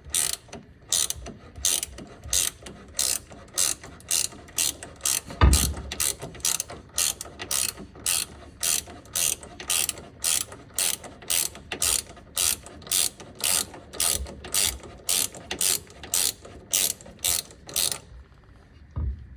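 Hand ratchet wrench clicking in quick, even back-and-forth strokes, about two or three a second, as a brake bracket bolt is worked out by hand; the ratcheting stops near the end. A single heavier thump about five seconds in.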